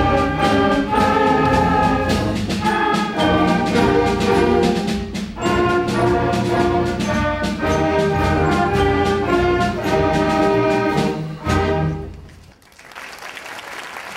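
Elementary school concert band of flutes, saxophones and brass playing to a steady beat, ending on a held final chord about twelve seconds in. Audience applause starts right after.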